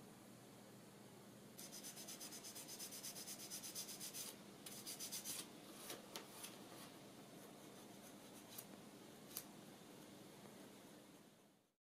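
Paper rubbed briskly back and forth over a thin laser-cut wooden model panel by hand, several strokes a second, in two runs. A few light single ticks follow, and the sound is faint throughout and cuts off suddenly just before the end.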